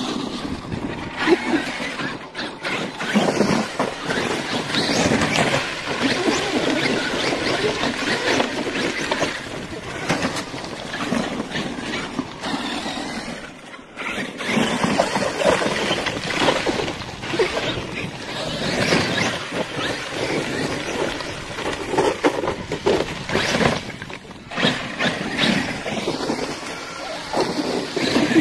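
Traxxas X-Maxx RC monster trucks being driven hard in sand. The sound swells and drops again and again, with a short lull about fourteen seconds in.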